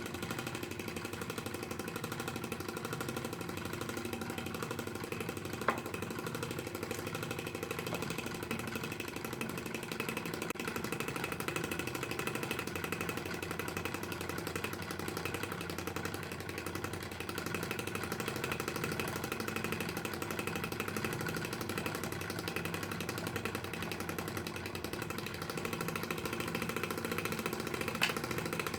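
Electric motor of a homemade lathe running steadily, with a sharp click about six seconds in and another near the end.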